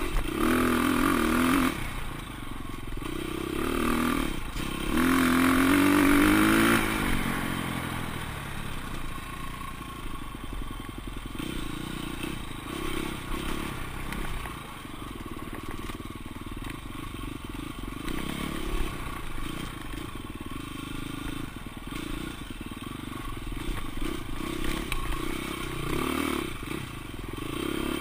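Off-road racing dirt bike engine heard from on the bike, revving hard with rising pitch in the first several seconds, then running at lower, varying revs through the rest of the stretch as it rides a rough trail.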